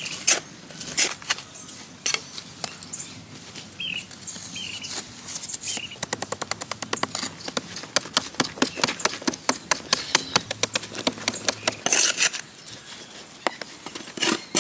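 Hand-tool work on wood: scattered sharp knocks, then a fast, even run of taps, several a second, for about six seconds from the middle on. A bird chirps a few times in the first half.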